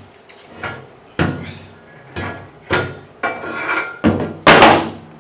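Metal knocks and clanks, about six in a row with a short metallic ring after each, the loudest near the end, as the cast iron table is worked loose and lifted off a bandsaw.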